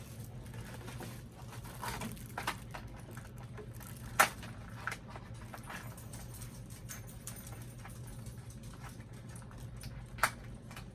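Small plastic clicks and crinkles from handling a doll's packaged accessories, with a sharp click about four seconds in and another near the end, over a steady low hum.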